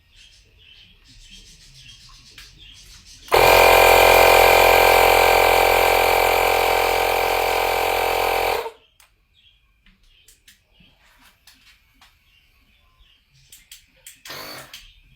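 Small electric air pump running steadily for about five seconds, then cutting off suddenly. It is pumping air into a boiler's deflated expansion vessel to re-inflate it.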